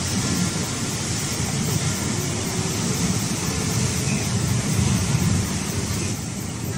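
Heavy sea surf breaking and washing around a limestone sea stack and the rocks below, a steady rushing noise with a deep rumble. The hiss eases slightly about six seconds in.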